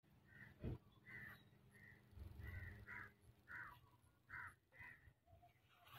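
Faint bird calls outdoors: about eight short calls spread over a few seconds, with a soft knock under a second in.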